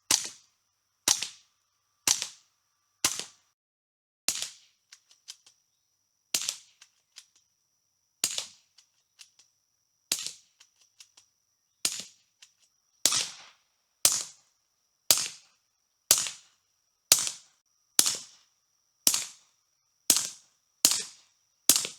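A .22 rimfire firearm fitted with a Hi-Point Hush Point 22 silencer fires about twenty suppressed shots, heard from about six feet behind the shooter. The shots come roughly one a second, with longer pauses in the first half, and fainter ticks fall between some of them.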